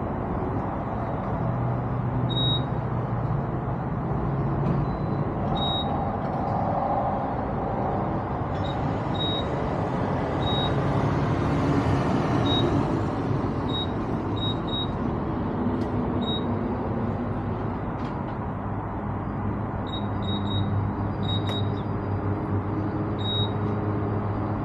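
Vehicle engines and road traffic at a gas station, with a steady low hum throughout. A louder hiss comes in about eight seconds in and fades some six seconds later, and short high beeps sound now and then.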